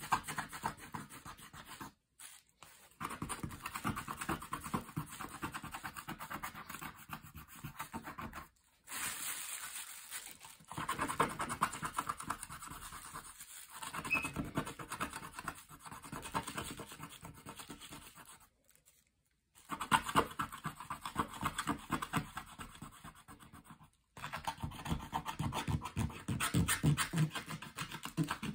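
Rapid scratching of a small hand tool back and forth across the coated paper page of a scratch-off activity book, scraping the coating off. It comes in spells of a few seconds with brief pauses between them.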